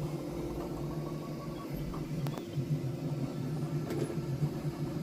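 Steady low machine hum, with two faint clicks in the middle.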